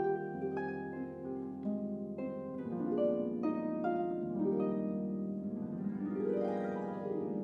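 Solo concert harp playing a slow jazz ballad: plucked chords and melody notes ringing over a sustained bass. Near the end comes a quick glissando that sweeps up the strings and back down.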